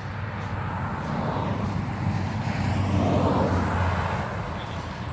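A vehicle passing by, its noise swelling to a peak about three seconds in and then fading.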